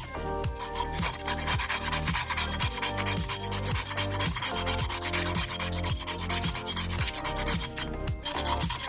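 Wood being rubbed down by hand with an abrasive, in quick back-and-forth strokes, starting about a second in and stopping near the end. Background music with a steady beat plays underneath.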